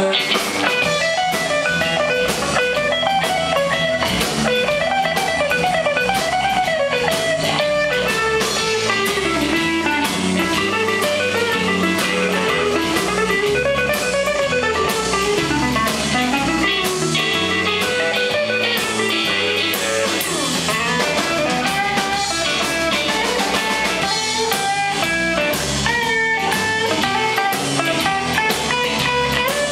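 Live blues band playing: a lead electric guitar on a hollow-body archtop plays a wandering solo line over drums and bass.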